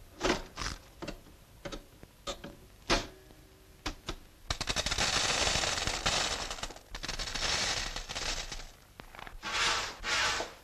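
Cartoon sound effects: a string of sharp knocks and bangs, then a rapid rattling clatter about four and a half seconds in that lasts a couple of seconds, and another short rattle near the end.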